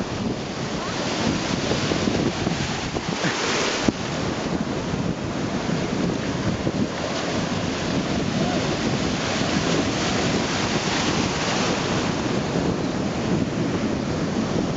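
Ocean surf breaking and washing in over shallow water, with wind noise on the microphone.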